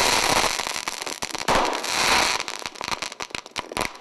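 A mass of confiscated fireworks going off as they are destroyed by burning: a dense crackling of many small reports from bursting crackle shells, thinning to scattered separate pops after about two seconds.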